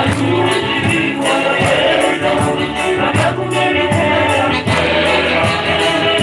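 A church choir singing the Gospel acclamation to rhythmic hand percussion, as the congregation stands to welcome the Gospel reading.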